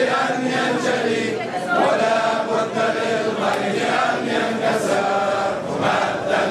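A large crowd chanting together in unison, many voices on drawn-out notes.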